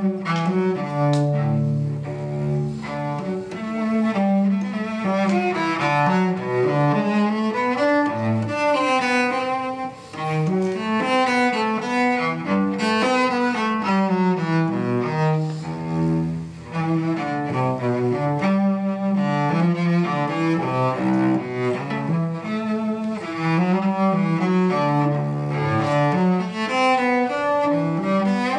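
Solo cello played with a bow: a continuous flowing line of separate notes, with two brief breaks about ten and sixteen seconds in.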